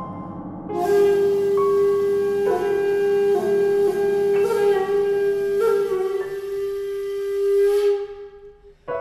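Shakuhachi music: a long breathy note held with small pitch bends, over a low accompaniment that drops away about six seconds in, then fading briefly near the end.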